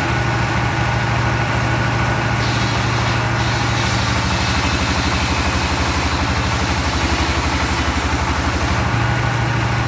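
Engine of a log sawmill's circular-saw rig running steadily at a constant speed, with an even low pulse.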